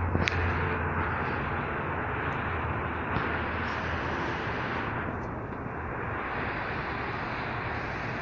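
Steady outdoor rushing noise with a low hum underneath, and a sharp click just after the start.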